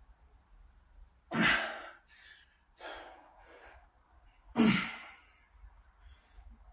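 A man breathing hard from exertion while lifting a barbell overhead: two loud, forceful exhalations about a second and a half in and again about four and a half seconds in, with a softer breath between.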